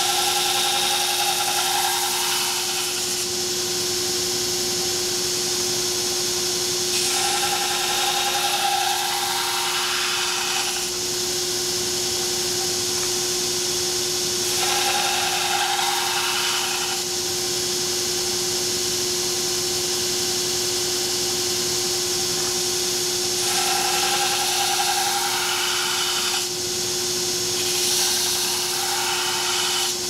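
Belt grinder running with a steady hum while a steel knife blade (O1 tool steel) is pressed against the belt in several passes of a few seconds each, each pass adding a louder, brighter grinding hiss.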